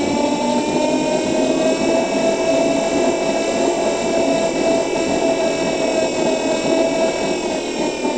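Electric city bus's motor whining steadily: several high tones that drift slightly in pitch over the running noise of the bus.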